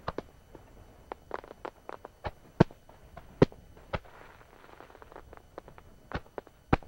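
Aerial fireworks shells bursting overhead: many sharp bangs in irregular succession, the loudest a little over two and a half and three and a half seconds in, and again near the end.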